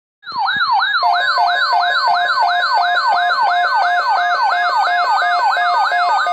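Electronic siren in a fast yelp, its pitch sweeping downward about three times a second, with a lower stepped warbling tone joining about a second in.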